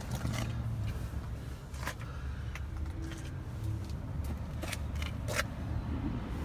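A low steady rumble with a few light clicks and taps, handling noise around an open car door.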